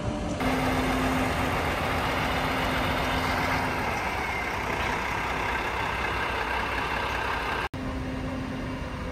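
Truck engine running steadily with a constant hum, the engine of a truck-mounted loader crane at work. The sound drops out for an instant near the end.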